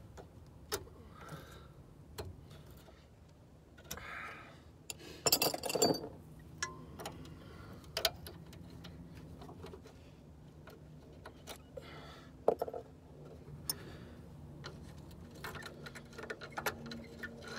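Irregular metallic clicks and clinks of hand tools on the rusty front suspension parts being taken apart, with a louder clatter about five to six seconds in, over a faint steady low hum.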